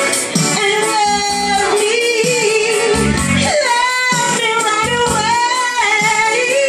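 A woman singing into a handheld microphone over instrumental backing music, with long, wavering held notes.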